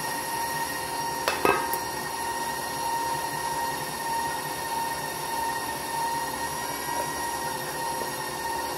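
Stand mixer running steadily with a motor whine as it beats butter, sugar and peanut butter into cookie dough. There are a couple of sharp knocks about a second and a half in.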